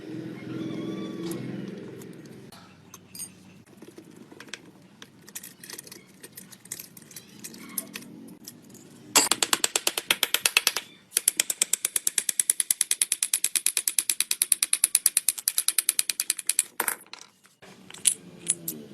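Socket ratchet wrench clicking on a motorcycle bolt: scattered tool taps and clicks, then about halfway in a long run of rapid, even ratchet clicks lasting several seconds with a brief pause, stopping near the end.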